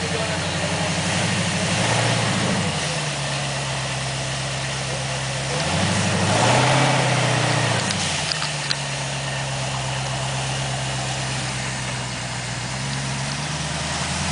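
Rock bouncer buggy's engine running at a low crawling idle, blipped up twice, about two seconds in and again around six to seven seconds in, as it climbs over boulders. A couple of small sharp knocks just after the second rev.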